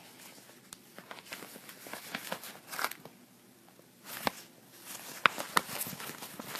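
Stiff paper mailer and its packing material rustling and crackling as a hand digs inside the package. Faint at first, then louder crackling with a few sharp snaps in the second half.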